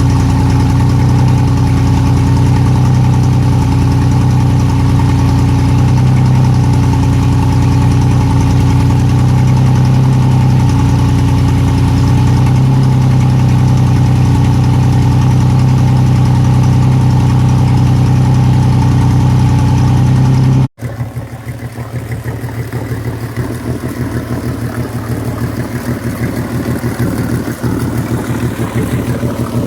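Yamaha F200 four-stroke outboard motor running steadily at idle, brought back to life after sitting for years by priming fuel straight into its fuel-water separator. About twenty seconds in the sound cuts off abruptly to a quieter engine sound with an even pulse.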